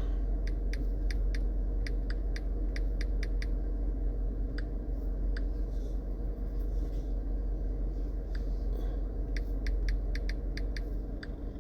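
Keyboard typing: a quick run of a dozen or so light clicks in the first few seconds, then scattered taps and short bursts of keystrokes, over a steady low hum.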